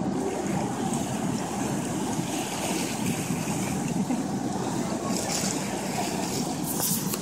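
Steady low rumble of a docked passenger ferry with harbour water churning and slapping against the quay wall, mixed with some wind on the microphone.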